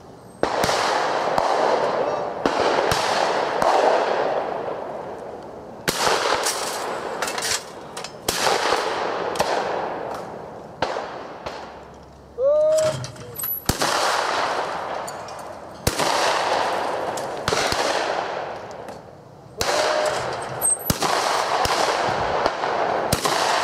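Shotguns firing at sporting clays: a long run of about twenty sharp reports, some a fraction of a second apart, each ringing out with a long echo.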